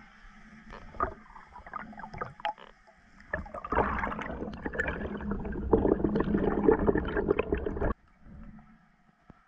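Water sloshing and gurgling around an underwater action camera: a few scattered knocks and clicks at first, then from about three seconds in a loud spell of splashing and bubbling that cuts off suddenly shortly before the end.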